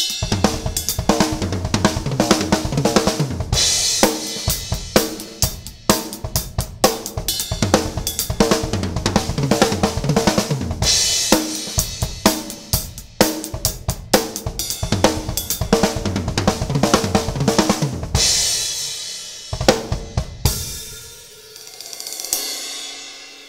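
Acoustic drum kit with Zildjian cymbals played solo: fast right-hand, left-hand, kick patterns moving between ride-cymbal bell, hi-hat, floor tom, snare and bass drum in a two-bar fill. Crash cymbals ring out several times, and the last crash fades away near the end.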